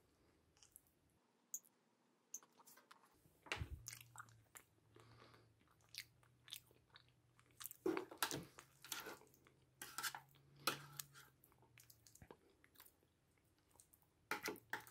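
Quiet eating sounds from an MRE meal: scattered clicks and scrapes of utensil and packaging, with chewing.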